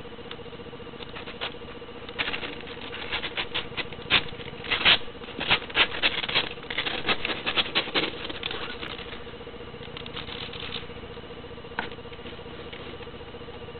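Three-week-old kittens moving about on their bedding: a run of quick scratchy rustles and clicks, busiest in the middle and thinning out near the end, over a steady low electrical hum.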